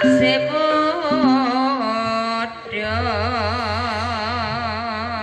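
Javanese gamelan music with a sung melodic line: gliding phrases, then from about three seconds in one long held note with a wide, wavering vibrato.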